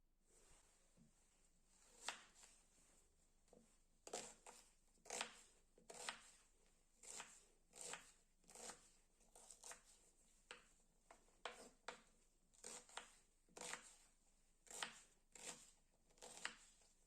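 Knife cutting food on a cutting board: a quiet run of about twenty separate cuts, roughly one a second or a little faster, starting about two seconds in.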